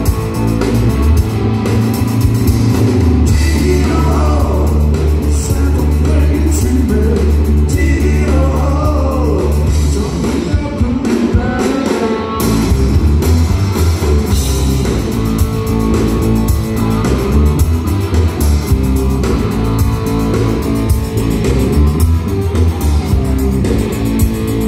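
Live rock band playing loud through a concert PA: electric guitar and bass guitar with a singer, heard from among the audience.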